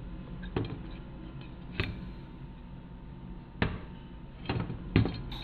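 Steel wire spokes knocking and clicking against a motorcycle wheel hub and rim as they are threaded in by hand: about six separate sharp knocks at uneven intervals, closer together near the end.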